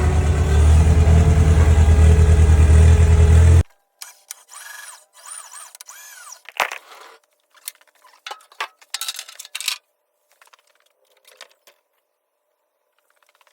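A heavy engine running with a deep pulsing rumble, cut off abruptly a few seconds in. Faint scattered clicks and short chirps follow.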